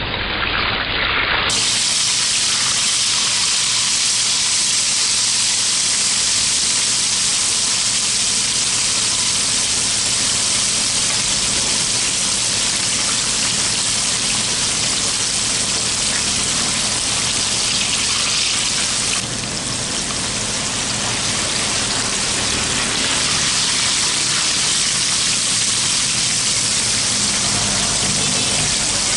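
Whole tilapia deep-frying in a pan of hot oil: a steady, loud sizzle of bubbling oil.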